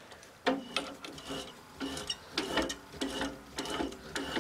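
A starting (taper) tap being turned by hand into a cast iron steam-engine cylinder, cutting 3/8-16 threads for the cylinder head bolts: a run of short scraping clicks, about two a second, each with a faint squeak.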